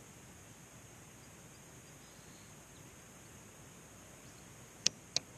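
Faint outdoor ambience with a steady high-pitched hiss, broken near the end by two sharp clicks about a third of a second apart.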